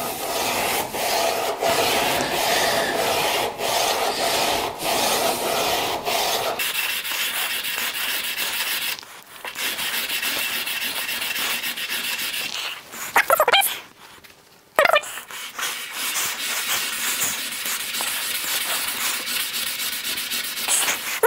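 Back of a steel wood chisel rubbed in repeated back-and-forth strokes on wet 1000-grit sandpaper, a steady scraping as the back is lapped flat. The scrape turns higher-pitched about a third of the way through, with short lulls in the strokes.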